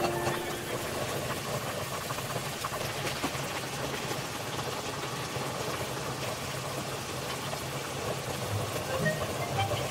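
Water at a rolling boil bubbling steadily in a frying pan with thin pork slices in it, over a steady low hum.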